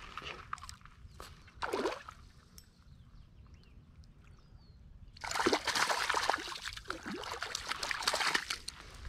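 Shallow lake water splashing at the shoreline as a small largemouth bass is let go in the shallows: two short splashes in the first two seconds, then a longer stretch of splashing and trickling from about five seconds in.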